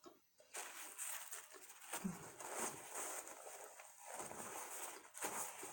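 Close-miked eating sounds: chewing with many small crackly clicks, starting about half a second in.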